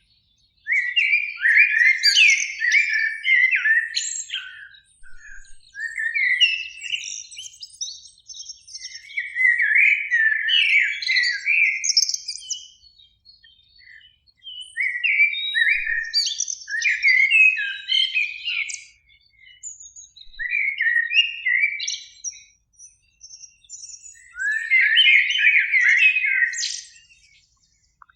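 Common blackbird song: about six warbled phrases, each a few seconds long, with short pauses between them and higher twittering notes mixed in.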